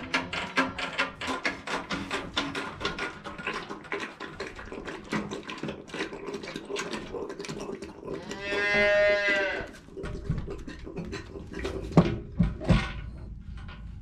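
A young calf mouthing and bumping a metal bucket: a fast run of clicks and rattles, then one bawl, a rising-and-falling moo about a second long. A couple of sharp knocks follow near the end.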